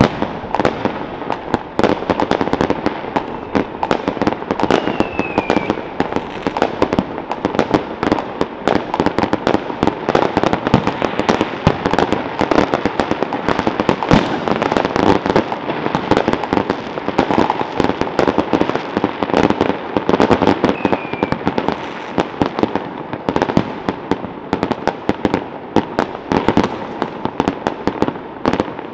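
Many fireworks and firecrackers going off at once across a city, making a dense, unbroken crackle of bangs and pops. A short falling whistle is heard twice.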